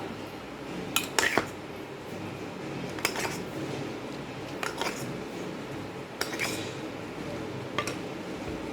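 Tableware clinking against a plate while eating: a few short sharp clinks, some in quick pairs, spread through a few seconds.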